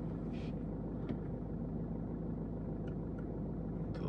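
A BMW car's engine idling, a steady low hum heard from inside the cabin, with a few faint clicks.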